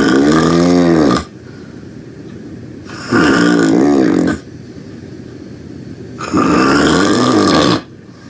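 Loud snoring during a nap: three long, rough snores about three seconds apart, each with a pitch that bends up and down.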